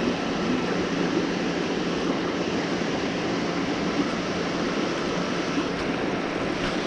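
Steady rush of fast-flowing creek water below a dam, an even unbroken hiss with no change.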